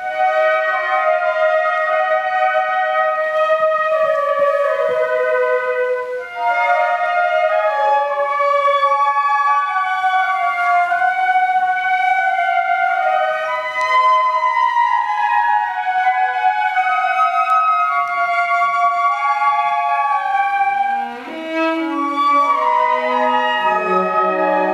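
Flute ensemble playing a slow melody in several harmonized parts, coming in suddenly after a pause; lower-pitched flutes join near the end.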